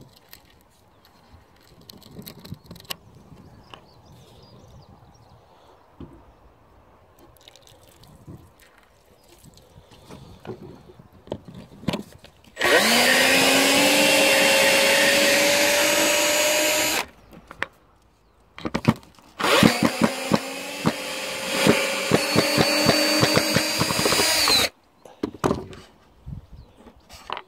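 Cordless drill-driver backing out rusted deck screws: two runs of about four and five seconds, its motor whine rising as it spins up, the second run opening with rapid clicks. Before that, faint scattered handling noises.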